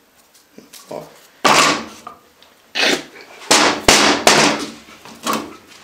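About six irregularly spaced wooden knocks and thumps as wooden pieces are handled and knocked against the workbench, each with a short ring in the small workshop.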